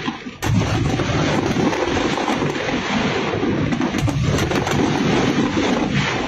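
Aerial fireworks bursting: a continuous rumble of overlapping shell explosions with sharp bangs and crackle throughout, a brief lull cut off by a loud bang about half a second in.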